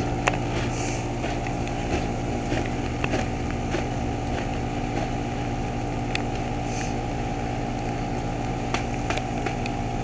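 Ruud Achiever RP14 heat pump running in defrost mode: a steady mechanical hum with several held tones and scattered faint ticks.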